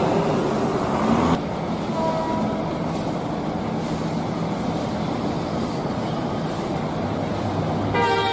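Coach's diesel engine running steadily at low speed, louder at first until an abrupt drop about a second and a half in. A horn sounds briefly near the end.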